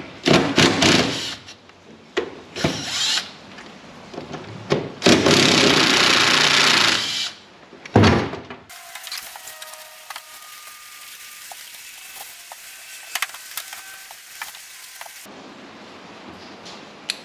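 Cordless drill running in short bursts, with one longer run of about two seconds, as it backs out the bolts holding a VW Beetle's gear shifter to the floor tunnel. After about nine seconds only faint clicks remain.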